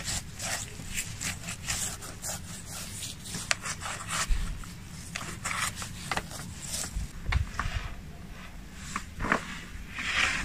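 Hands rubbing seasoning into the skin of a raw guinea fowl on a wooden board: a run of short, irregular rubbing and scraping strokes, with a few dull knocks.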